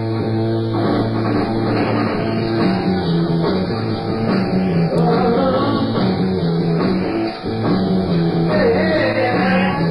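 Live rock band playing a song's instrumental opening: a driving electric guitar riff over a pulsing, repeated bass line, with a wavering melodic line coming in near the end.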